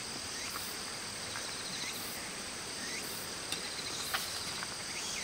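Steady chorus of singing insects, with a high pulse repeating about once a second over a continuous high drone. Two light clicks about three and a half and four seconds in, from the metal spoon against the curry dish.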